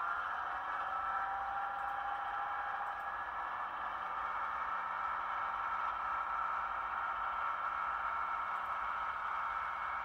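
Model train running along the layout's track: a steady electric motor whine, with wheels rattling over the rails.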